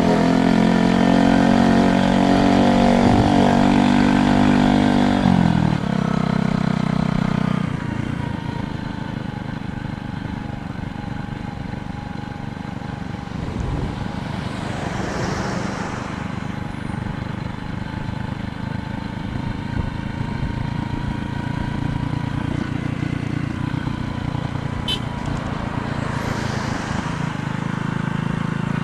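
A motor vehicle's engine runs close by for the first six seconds, then falls away. Steady road and wind noise follows, with vehicles passing twice, near the middle and near the end.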